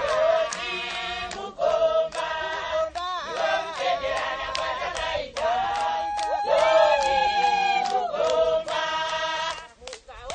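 A group of voices singing together in chorus, with a steady beat of sharp strikes under the song.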